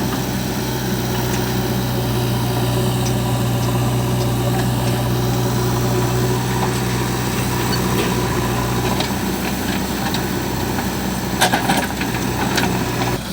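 Diesel engine of a backhoe or tractor running steadily, with a few sharp knocks near the end.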